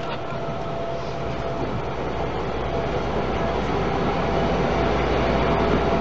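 Vintage DB class V 200 diesel-hydraulic locomotive (V 200 033) rolling slowly past at close range, its engines running with a steady low drone that grows a little louder as it comes alongside. A thin steady tone sits above the drone.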